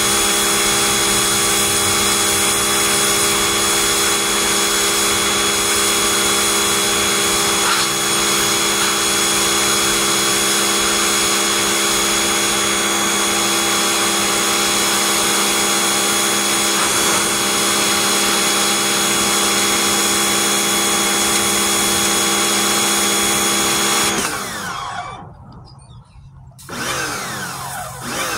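Pressure washer running steadily while spraying, with a constant motor hum and hiss. About three-quarters of the way through it winds down in pitch and stops, then starts up again near the end.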